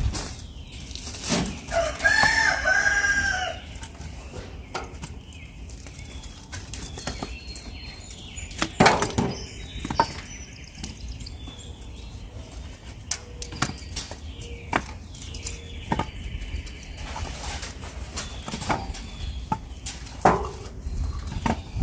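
A rooster crows once, about two seconds in. Scattered sharp knocks and clatter run through the rest, the loudest about nine seconds in.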